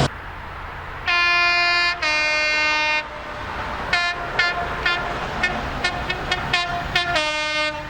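UK train's two-tone horn sounding a high note then a lower note, each about a second long. A few seconds later comes a run of rhythmic clicks, and the horn sounds again near the end.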